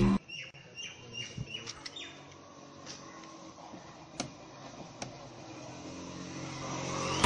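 Outdoor street ambience with small birds chirping, and a few sharp clicks about three, four and five seconds in as the rear door handle of a Hyundai i10 is pulled.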